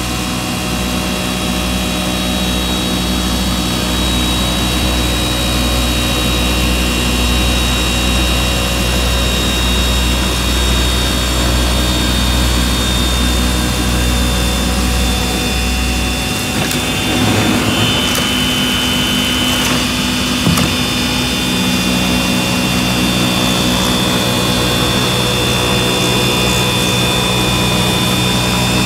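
Lectra automated cutter's reciprocating knife cutting through a 34-ply stack of Endumax, the blade vibrating at 3000 strokes a minute: a loud, steady machine drone with a high whine over it. The low drone drops out a little past halfway, with a brief change in the machine's sound and a few sharp ticks before steady running resumes.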